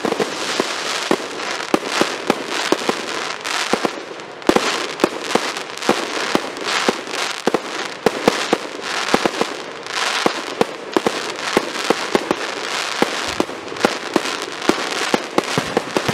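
Aerial fireworks display: rapid, overlapping bangs of shells bursting and launching over a dense, continuous crackle, with no let-up.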